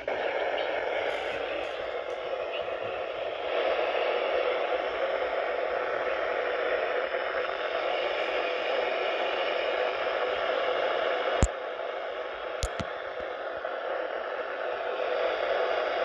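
Steady hiss of static from a weather radio receiver with no broadcast voice. Two sharp clicks come about a second apart, a little past the middle.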